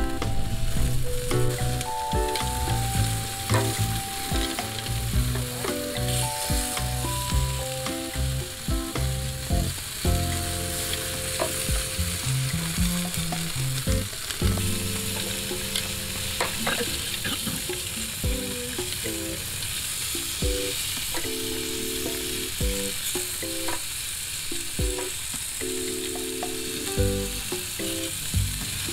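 Sausages sizzling on a charcoal grill grate, a steady crackling hiss with occasional sharp clicks from metal tongs turning them. Background music plays under it.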